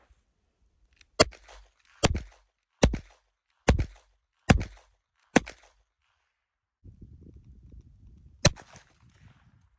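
Heritage Rough Rider .22 LR single-action revolver firing six sharp shots in steady succession, about one every 0.8 seconds, emptying its six-round cylinder. After a pause, a low rumbling noise starts, and one more shot cracks out partway through it.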